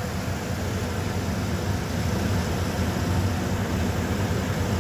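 1995 Ford F-150 engine idling steadily with the hood open, a low even hum with no changes in speed.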